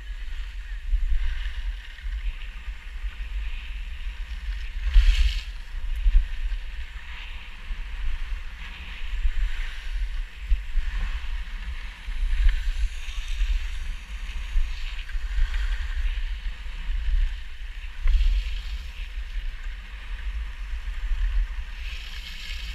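Wind buffeting a helmet-mounted action camera's microphone during a ski descent, a gusty low rumble, with the hiss and scrape of skis on snow coming and going. A sharp knock about five seconds in.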